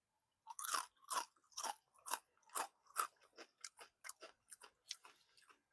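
Someone crunching and chewing crispy fried-chicken breading crumbs: a string of sharp crunches, about two a second at first and quicker later on.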